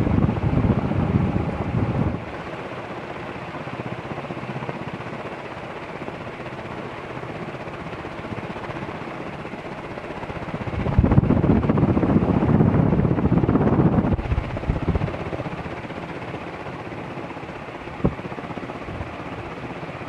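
Carib ceiling fan by Palco with 48-inch metal blades running, a steady rush of air from the turning blades. In the first two seconds, and again from about eleven to fourteen seconds in, the blade draft buffets the microphone with a louder, deep rumble; a single tick sounds near the end.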